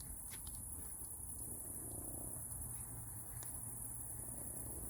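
Crickets chirping in a steady, high-pitched drone, with a faint low rumble beneath.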